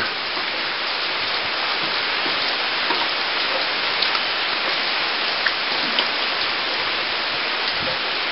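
Steady hurricane rain: a dense, even hiss with scattered ticks of single drops.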